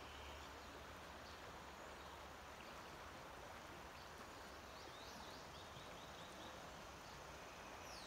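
Faint songbirds calling over a steady outdoor hiss: a quick run of short chirps a little past the middle, and a downward-sliding whistle near the end.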